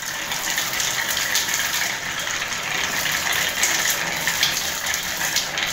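Water pouring in a steady stream from the disconnected outlet pipe of an electric water heater and splashing onto the tiles below, as the tank is drained.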